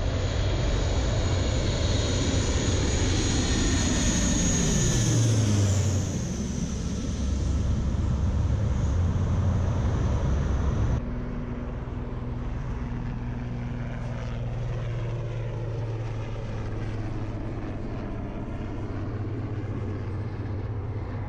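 Four-turboprop Lockheed C-130J Hercules passing low overhead, its engine and propeller drone falling sharply in pitch about five seconds in as it goes by. About eleven seconds in the sound cuts to a quieter, steady drone of a Puma HC2 helicopter flying past.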